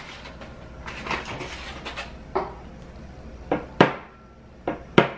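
Egg being tapped against the rim of a plastic mixing bowl: about five short, sharp knocks, the later ones coming in quick pairs.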